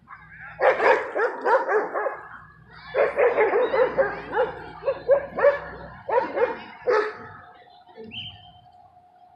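Dog barking and yipping during rough play, in three quick runs of barks.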